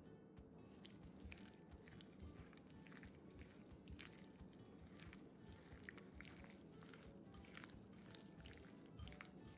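Faint wet squelching and irregular sticky clicks of a gloved hand kneading raw sliced chicken with cornstarch in a bowl.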